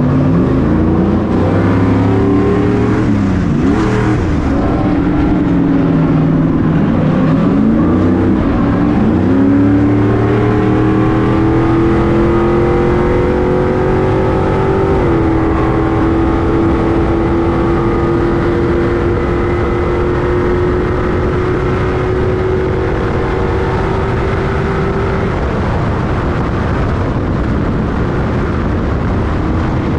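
Stadium Super Truck's V8 racing engine revving and backing off several times in quick succession, then pulling one long climb in pitch. It steps down once about halfway, holds steady high revs, and gives way to road and wind noise for the last few seconds.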